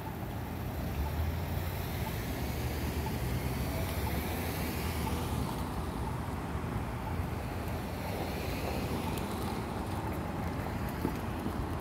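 Passing street traffic over a steady low rumble. One car's tyre and engine noise swells and fades in the first half.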